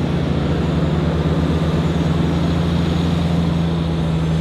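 Humvee V8 diesel engines running steadily as the vehicles drive slowly, a constant low hum.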